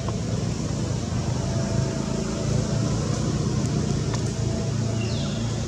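Steady low background rumble, with a short high call falling in pitch near the end.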